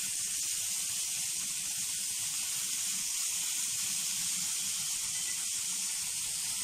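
Marinated chicken thighs sizzling steadily on a hot grill pan.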